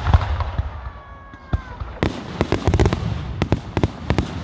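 Fireworks display: sharp bangs of bursting shells, a brief high whistle with a slightly falling pitch about a second in, then a dense run of rapid cracks and bangs from about two seconds in.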